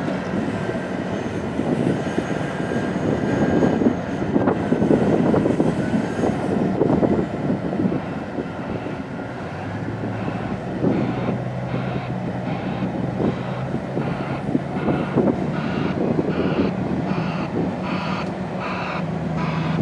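Heavy opencast mining machinery at work: a large excavator's diesel engines running under load, with clattering earth and rock. From about halfway, a steady engine drone that climbs slightly in pitch joins in, along with regular high pulses about twice a second.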